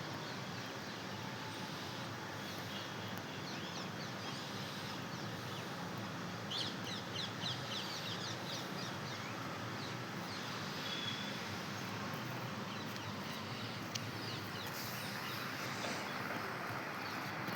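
Outdoor ambience: a steady hiss of background noise with small birds chirping, including a quick run of high chirps about six to eight seconds in.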